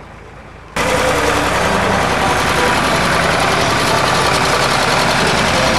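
An engine running, loud and full of hiss, starting abruptly under a second in.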